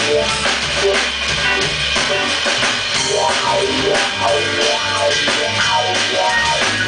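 Live instrumental band music: a drum kit playing a busy beat, an electric bass holding low notes, and an electric keyboard playing over them.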